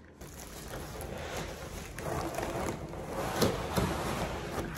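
Plastic wrapping and a cardboard box rustling and crinkling as an item is unpacked, with irregular sharp crackles that grow louder after about two seconds.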